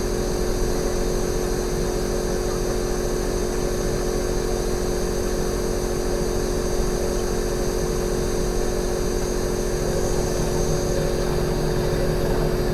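Fujitsu General AO-C28H inverter air-conditioner outdoor unit running in defrost mode: a steady compressor hum with a constant mid-pitched drone and a faint high whine. A lower hum joins about ten seconds in.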